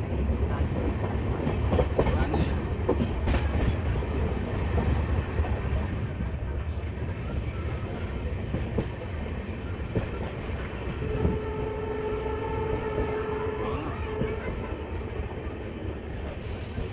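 Passenger train running on the track, its wheels rumbling and clicking over the rail joints. In the second half a steady pitched tone sounds for about three seconds.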